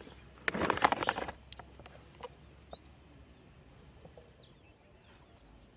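A short burst of clattering noise from camping cookware being handled, about half a second in, then a few light clicks. Several brief high chirps of small birds come through quietly.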